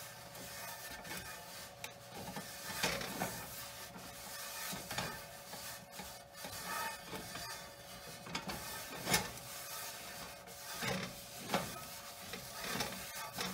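Cloth wiped in repeated strokes across the inside of a cast iron oval roaster, greasing the pan as it warms on the stove; each stroke gives a short rubbing swish, the strongest about two thirds of the way through.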